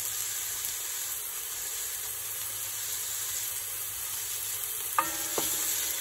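Chopped onions and carrots sizzling steadily in hot oil in an enamelled cast-iron Dutch oven, a sign that the vegetables are cooking. About five seconds in, a wooden spoon knocks against the pot with a short ring as stirring starts.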